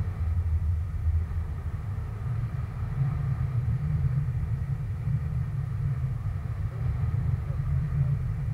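Wind buffeting the microphone of an action camera on a parasail harness in flight: a steady low rumble.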